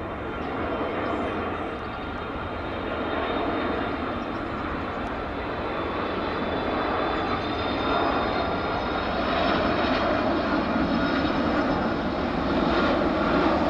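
Twin jet engines of a Boeing 767-300ER airliner running: a broad steady rush with a high whine over it, growing gradually louder.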